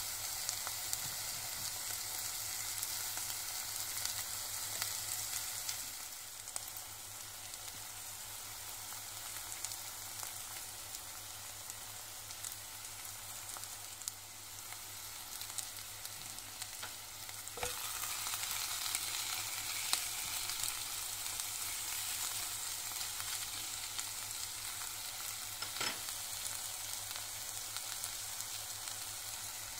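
Prawns sizzling as they fry in oil in a pan, with occasional sharp taps and scrapes of a spatula as they are stirred with chilli powder and spices. The sizzle drops lower about six seconds in and picks up again at around eighteen seconds.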